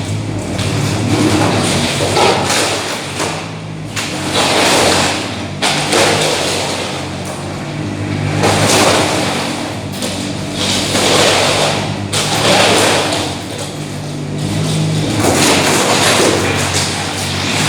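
A mini excavator's diesel engine runs steadily while demolition debris is scraped and crashes down in repeated loud swells every few seconds, with a few sharp knocks among them.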